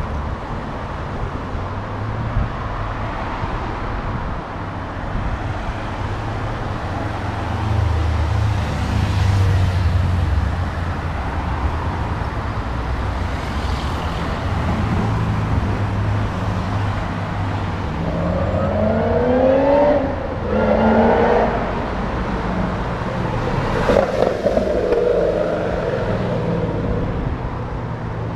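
Sports car engine: a low steady rumble for most of the time, then a car accelerating hard with its revs climbing twice in quick succession, and a loud car passing near the end.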